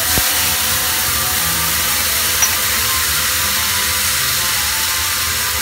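Loud steady sizzling hiss of Shaoxing wine splashed into a hot wok where a fish head has been frying, the wine flashing to steam. A single light click just after the start.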